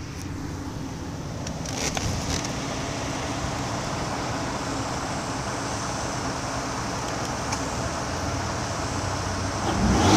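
Ford F-150's 3.5 L EcoBoost twin-turbo V6 idling steadily with no load, then beginning to rev up near the end.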